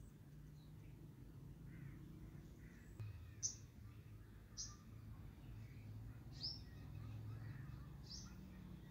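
A bird chirping: four short, sharp calls, each sliding down in pitch, spaced one to two seconds apart over a faint low hum.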